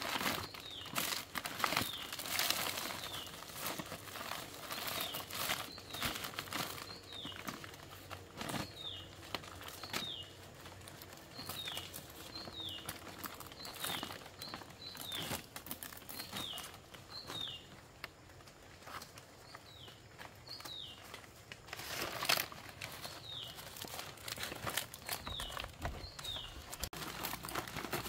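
Rustling and crinkling of a bundle of long stiff leaves being gathered and handled. A bird repeats a short, high, falling note over and over behind it.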